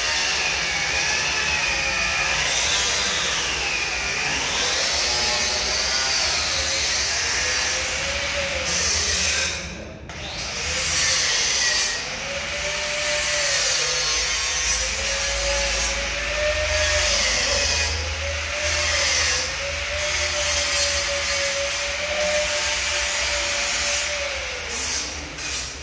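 Angle grinders grinding steel, a harsh running whine whose pitch sags and recovers as the discs bite. It cuts out briefly about ten seconds in, then runs on.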